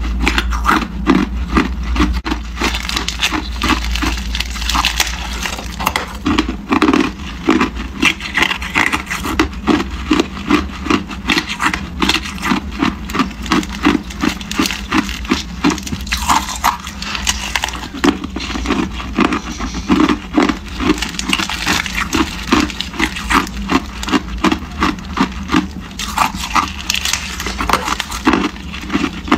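Hard clear ice cubes crunching as they are chewed close to the microphone, about two crunches a second, with the plastic ice-cube bag crinkling as cubes are worked out of it.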